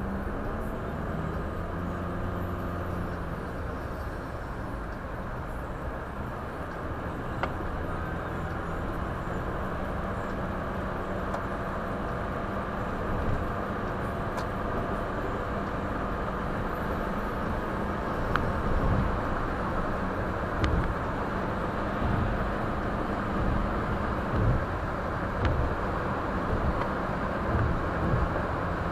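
A car being driven, heard from inside the cabin through a dashcam microphone: steady engine and road noise, with a series of short low thumps in the second half.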